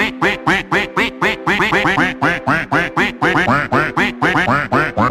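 Rapid quacking in an even rhythm, about five quacks a second, over music with steady held notes.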